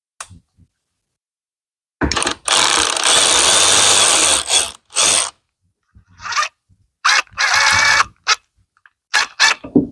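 Power drill running in stop-start bursts: a run of about two seconds, another of about a second, and several short blips.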